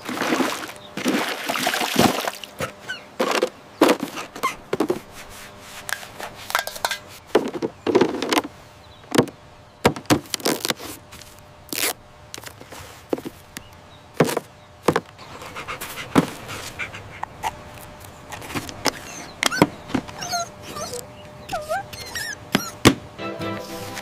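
Cartoon sound effects of crafting with junk: a run of short knocks, taps and rustles as plastic bottles, tape and cardboard are handled. A few short squeaky glides come in the last few seconds.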